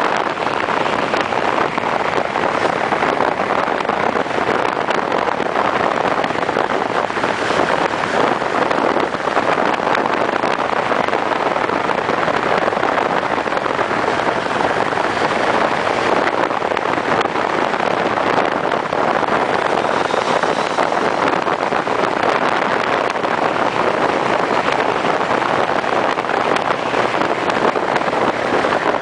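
Honda CB1300 motorcycle under way at road speed, heard from on board: a steady rush of wind and engine noise with no change in pace.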